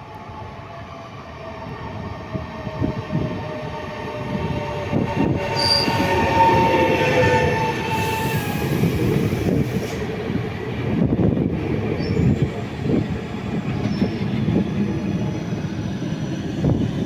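Train running through the station: a loud steady rumble of wheels on the rails with fine rapid clatter. Over it, high whining tones fall slowly in pitch during the first seven seconds, with some wheel squeal.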